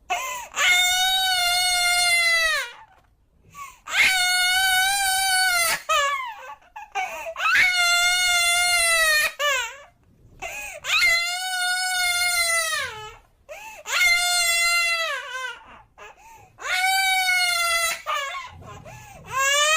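Baby crying: six long, high wails of about two seconds each, each dropping in pitch at its end, with short catching breaths between them.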